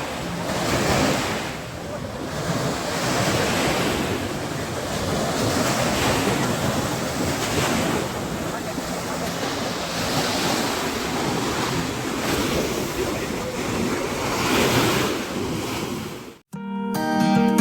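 Sea surf washing onto a beach, with wind buffeting the microphone and the noise swelling and easing every second or two. Near the end the sound cuts off abruptly and background music begins.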